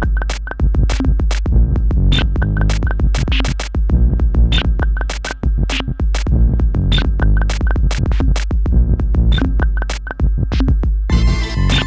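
Instrumental electronic beat music played on a Eurorack modular synthesizer: drum-machine-style kicks and sharp clicky percussion in a steady rhythm over a deep bass. Near the end the beat gives way to a dense, sustained drone chord.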